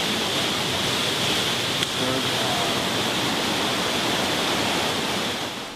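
Steady rush of water, a dense hiss with faint voices under it about two seconds in; it cuts off just before the end.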